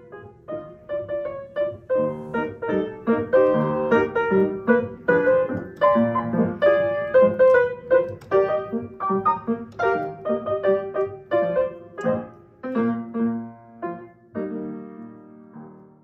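Solo piano playing arpeggios, the closing bars of a slow piece. It ends on a chord about a second and a half before the end, which rings and fades away.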